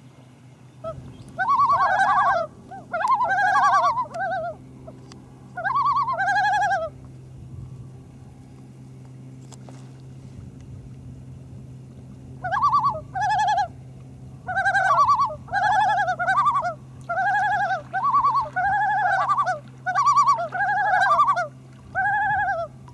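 Common loons calling: loud, repeated wavering notes that rise and fall, in two bouts, the first starting about a second in and the second after a pause of several seconds near the middle.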